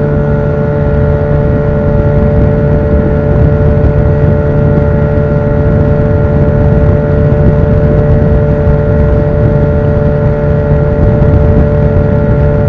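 Outboard motor of an inflatable boat running steadily at speed, with a constant engine tone over the rush of water and wind.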